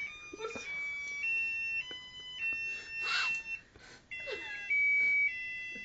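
Novelty electronic sound chip playing a tune in thin, high beeping notes that step between a few pitches, each held about half a second.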